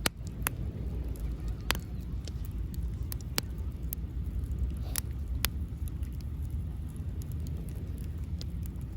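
Wood fire crackling, with sharp pops at irregular intervals over a steady low rumble.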